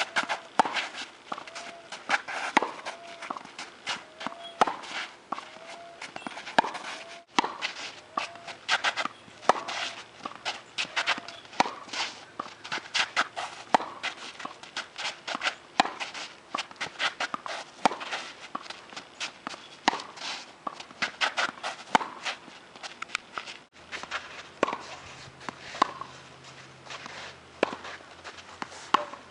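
Tennis rally on a hard court: a steady, irregular run of sharp hits of racket strings on the ball and ball bounces, mixed with quick footsteps on the court surface.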